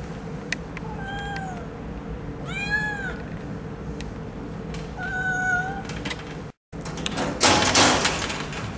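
Young kittens meowing three times in high, thin calls, each rising and falling in pitch. Near the end comes a short, loud clatter.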